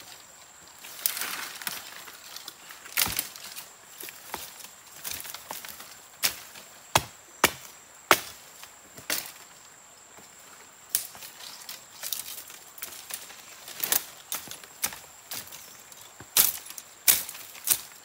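Axe chopping through brush and stems, sharp cutting strikes at uneven intervals of roughly one a second, with rustling of the cut vegetation between them. A faint, steady, high insect trill runs underneath.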